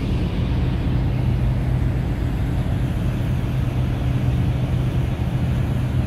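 Steady low drone of a ferry's engines and machinery, with a constant low hum.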